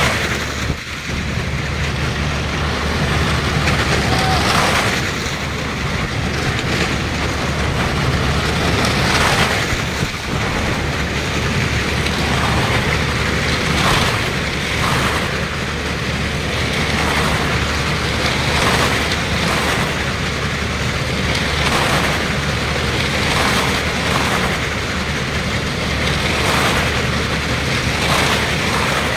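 Engines of stunt vehicles racing round the wall of a well-of-death drum, the noise swelling each time one passes, about every one and a half seconds.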